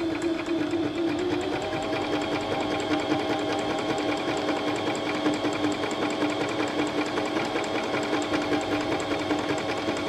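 Pfaff Element 1090s household sewing machine running steadily at an even speed, a constant motor hum with a rapid, regular clatter of the needle mechanism.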